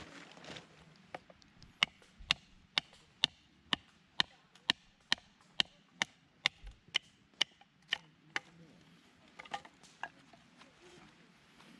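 A series of sharp, evenly paced strikes, about two a second for some seven seconds, each with a brief ring, then a few softer knocks near the end.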